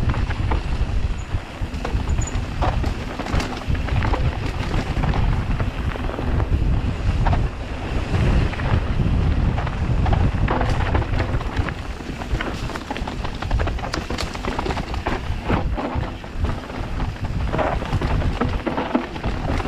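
Wind buffeting the microphone over a constant low rumble, with frequent sharp knocks and rattles from a bike being ridden fast over a rough trail.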